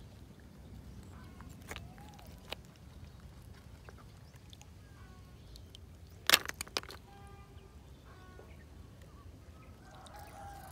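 Snail shells clattering as a handful of freshwater snails is dropped into a red plastic basin full of snails: a short burst of sharp clicks about six seconds in, with a couple of single clicks earlier, over a faint low rumble.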